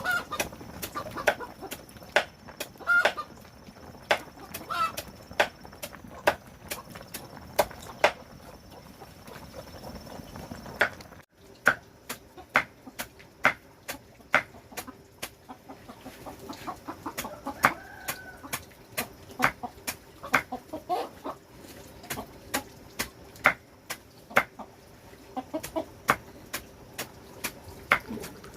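Chickens clucking, with many sharp taps and clicks throughout. A faint steady hum sets in about eleven seconds in.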